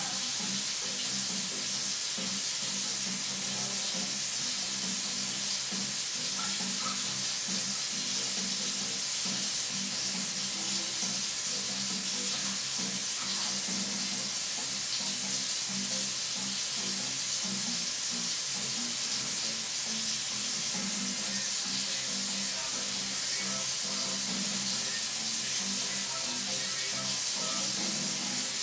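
Steady hiss with faint music underneath, with no change through the stretch.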